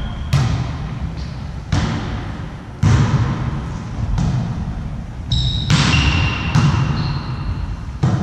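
Volleyball rally: a ball slapped by hands and forearms again and again, six sharp hits in about eight seconds, each ringing out in a large echoing gym hall, with a few short high squeaks between them.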